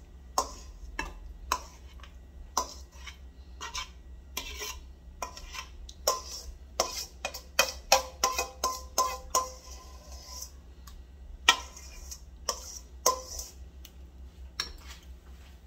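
A metal utensil scraping and knocking against a stainless steel mixing bowl and a glass bowl as guacamole is scooped across: a string of irregular clicks and scrapes, busiest in the second half, with the steel bowl ringing briefly about eight to ten seconds in.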